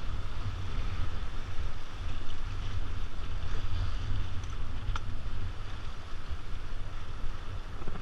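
Wind buffeting the microphone over the steady rush of river water.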